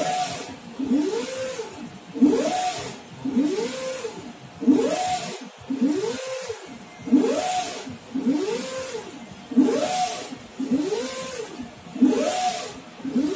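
UV flatbed printer's print-head carriage shuttling back and forth, its drive motor whining up and down in pitch on each pass with a hiss, in an even rhythm of about one pass every 1.2 seconds.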